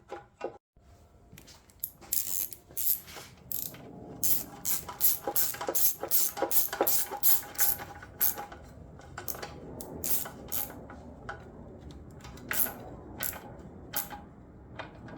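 Ratchet clicking in quick runs of several ticks a second as the bolts securing a lawn mower's fuel tank are wound in, with a few separate clicks later on.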